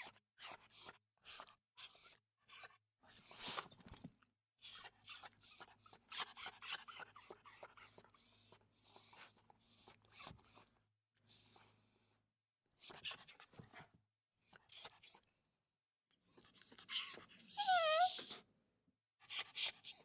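A dog lapping water, rapid wet laps in irregular runs broken by short pauses, with a brief falling squeak near the end.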